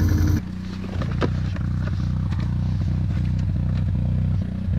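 Can-Am 6x6 ATV's V-twin engine idling steadily, with a few sharp clicks and clatter of hands and a tool working on parts at the front of the machine.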